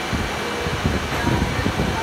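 Plastic injection molding machine running, a steady mechanical noise with faint constant tones, over irregular low rumbling that may be distant voices.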